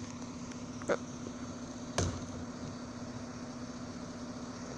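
A garbage truck's engine running steadily at a distance, with a brief higher noise about a second in and a sharp knock about two seconds in.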